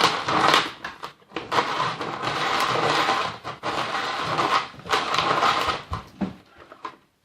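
Hand-cranked Snoopy Snow Cone toy ice shaver grinding and scraping an ice cube, a rough, uneven crunching with knocks as the machine shakes. It fades about six seconds in and stops shortly before the end.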